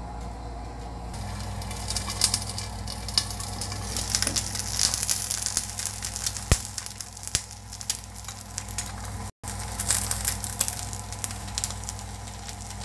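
Eggs frying in a non-stick pan, sizzling with many small crackles. It starts about a second in and cuts out for a moment about nine seconds in.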